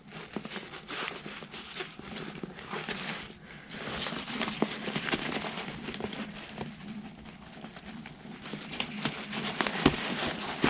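Crinkling and rustling of a backpack's stiff grid fabric as hands work a stay into its pocket, made up of many irregular small clicks and scrapes.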